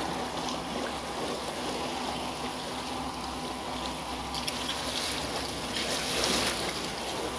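Water rushing and splashing along the hull of a moving boat, over a steady low hum. The splashing grows louder about six seconds in, as the wash slaps around a hanging tyre fender.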